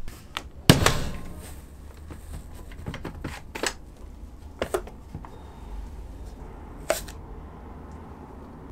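One-hand bar clamps being released and a chipboard foam press opened: a loud knock about a second in, then a few sharp plastic clicks spread over the following seconds.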